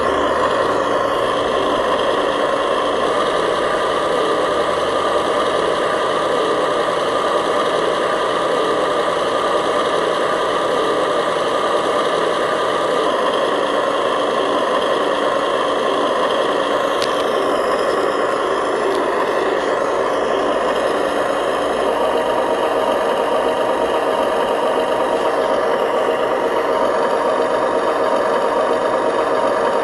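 Remote-control model truck running: a steady mechanical engine-like drone with some rattle, holding even throughout.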